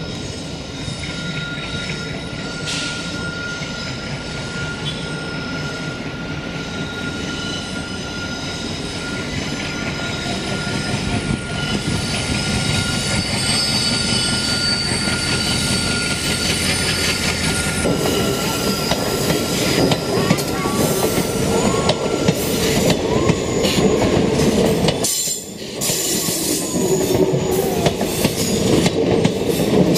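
Passenger train running round a curved railway viaduct, its wheels squealing on the curve over the rumble and clatter of the coaches on the rail joints. It gets louder as it nears, and the squealing is strongest in the second half.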